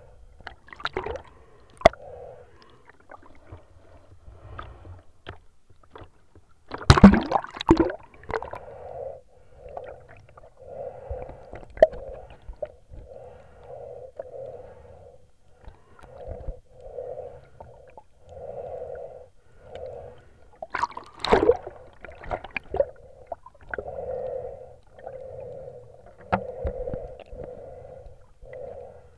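Muffled underwater water noise heard through a waterproof camera housing: soft gurgling pulses about once a second, with two louder gurgling bursts about seven and twenty-one seconds in.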